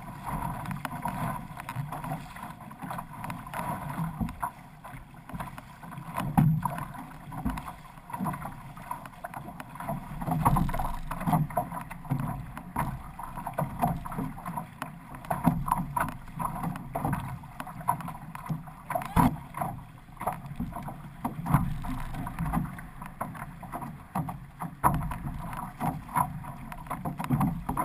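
Water rushing and splashing along the hull and outrigger float of a six-person outrigger canoe under way, with paddle strokes slapping the water in a rough, repeated rhythm.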